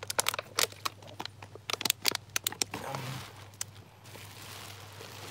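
Clear plastic drink bottle crinkling and clicking in the hand as a person drinks from it: a run of sharp, irregular clicks over the first three and a half seconds, then a soft hiss.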